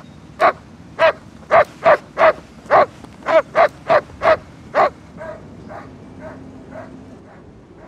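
A dog barking repeatedly, about two barks a second. After about five seconds the barks carry on much fainter.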